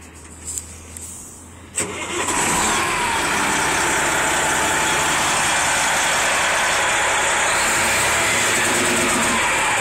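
Semi-truck's diesel engine, heard close to its front wheel: a quiet low hum, then a sudden loud start-up about two seconds in, after which it runs loud and steady with a faint pitch gliding up and down.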